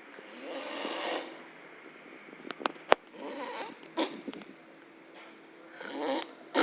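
A person snoring, with rasping breaths about every two and a half to three seconds. There is a sharp click about three seconds in.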